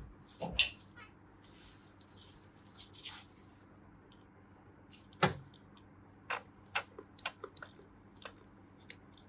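Scattered light clicks and taps of engine parts and tools being handled during reassembly, the loudest about five seconds in, over a faint steady hum.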